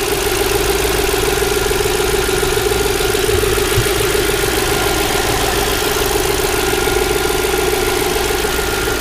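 2002 Audi S6's 4.2-litre V8 idling steadily and smoothly, no longer misfiring now that the failed ignition coil has been replaced.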